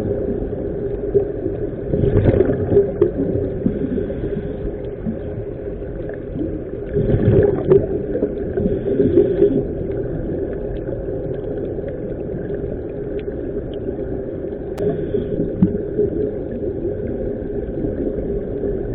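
Muffled, steady rumble of water and motor noise, with louder gurgling surges about two seconds in and again around seven to eight seconds in.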